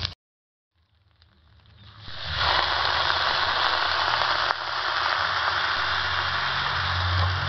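Water being poured into a hot wok of frying corn and egg, hissing and sizzling steadily. It fades in from silence over the first two seconds.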